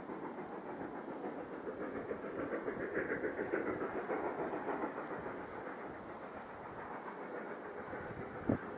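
Narrow-gauge steam train working upgrade, heard from afar as a steady rumbling rush that swells a few seconds in and eases off. One sharp knock stands out near the end.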